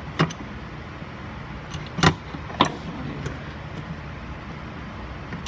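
Hammer striking a chisel to drive a worn bushing out of a control arm clamped in a vise: sharp metal blows just after the start, about two seconds in and again a moment later, with lighter clinks between.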